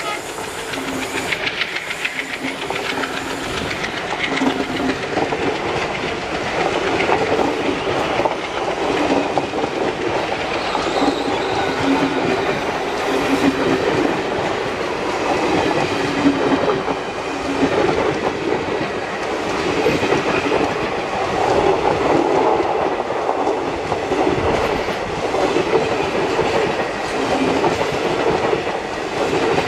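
A long rake of Indian Railways passenger coaches rolling past close by, the wheels clattering steadily over the rail joints.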